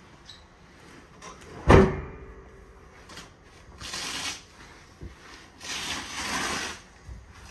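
Sofa being folded down into a sleeper bed: one loud thump with a brief ring about two seconds in, then two longer rustling swishes of upholstery being pulled over.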